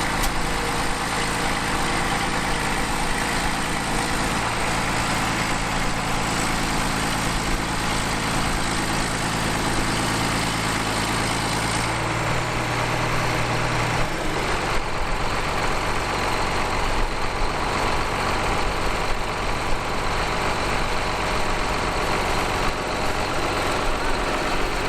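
John Deere 4755 tractor's six-cylinder diesel engine running steadily. Its low hum changes in tone about twelve to fourteen seconds in.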